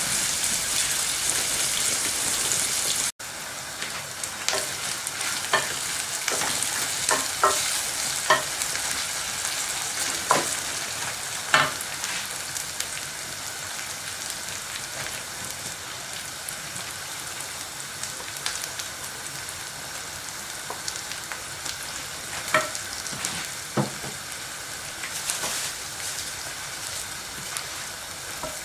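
Sliced onions frying in an aluminium pan, a steady sizzling hiss that breaks off for an instant about three seconds in and then carries on quieter. A wooden spoon clicks and scrapes against the pan now and then as the onions are stirred.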